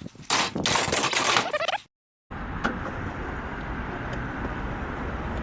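Loud clattering and scraping for a couple of seconds, then, after a cut, a vehicle running steadily with low engine and road rumble.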